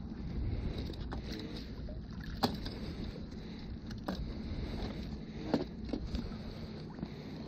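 Steady low water-and-wind rumble around a small boat, broken by a few sharp knocks and splashes as a landing net with a fish is lifted out of the water and handled against the hull.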